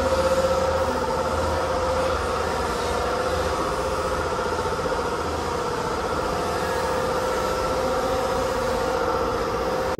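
A machine running steadily: a continuous, even drone with a held mid-pitched tone.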